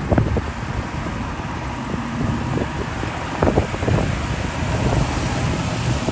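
Off-road vehicle engine running at low speed under a steady rush of wind on the microphone, with a few sharp knocks, the loudest near the start and about three and a half to four seconds in.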